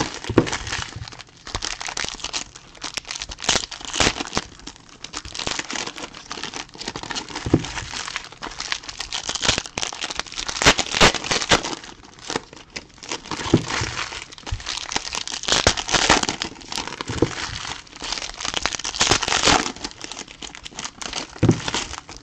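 Foil trading-card pack wrappers crinkling and tearing as packs are ripped open and handled, in uneven crackling bursts.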